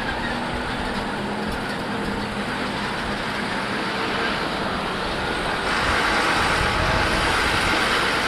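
Motorcycle riding in city traffic: its engine running under steady wind and road noise, with the traffic and a bus close alongside. The noise gets louder a little past halfway.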